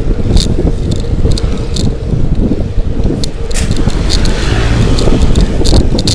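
Wind and road noise rumbling on the microphone of a bicycle rider moving at speed, with scattered short clicks and rattles.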